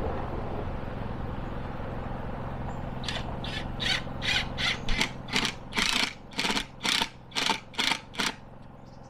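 Screwdriver driving a wood screw through a plastic camera bracket into a tree trunk. About three seconds in, a quick run of short scraping strokes begins, roughly three a second, one with each twist, and stops shortly before the end.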